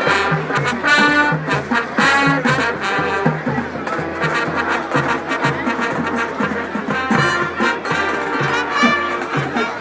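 High school marching band playing a swing-style jazz chart: trombones and trumpets over a steady low beat of about two pulses a second, with drums.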